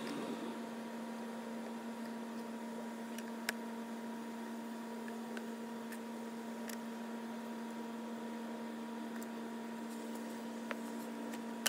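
Steady electrical hum at a few fixed pitches, with a few faint, isolated clicks.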